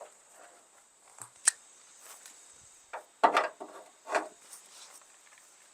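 Hand tools being handled and sorted: a few scattered clicks and knocks, the loudest cluster about three seconds in.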